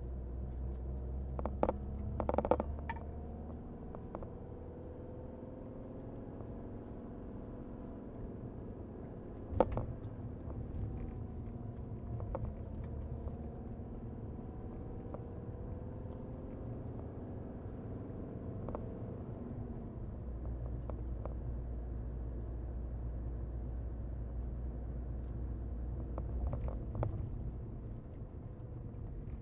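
Mercedes-Benz W124 200D's four-cylinder diesel engine running steadily while the car drives, its pitch drifting slowly with engine speed over a low road rumble. A few knocks come through, the sharpest about ten seconds in.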